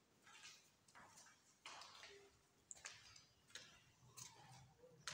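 Faint footsteps on a bare tiled floor, a soft tap about every two-thirds of a second at a walking pace.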